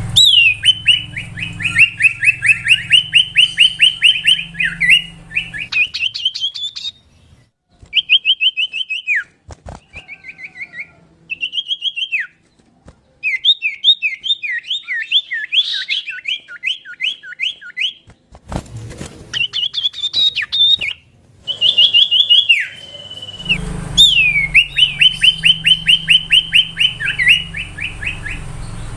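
Common iora (cipoh) singing: fast runs of repeated whistled notes in phrases a few seconds long, broken by short pauses.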